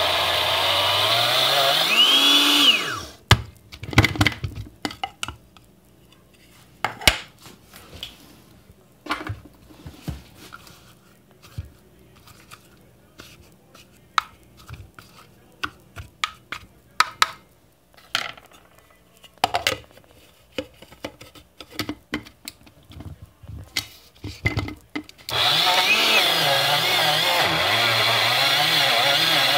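Small electric blade grinder grinding sesame seeds into tahini paste, its pitch rising before it cuts off about three seconds in. A long pause of scattered knocks and clicks from handling the grinder follows, and the motor starts grinding again about 25 seconds in.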